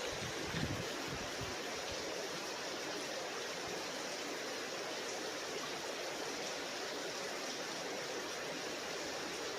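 Waterfall and its stream rushing in a steady, even wash of water noise, with a few low thumps in the first second or so.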